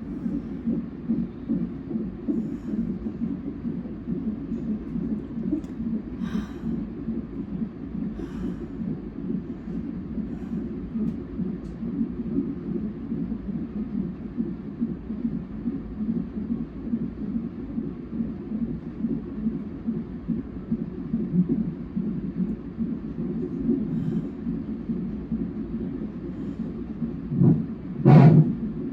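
Fetal heartbeat played through a non-stress test's Doppler monitor: a steady, fast, rhythmic whooshing pulse. Near the end there is one loud, brief thump.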